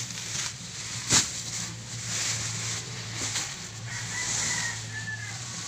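Large woven sacks being lifted and set down on a vehicle's cargo floor: rustling and scraping of the sack fabric, with one sharp thud about a second in, over a steady low hum.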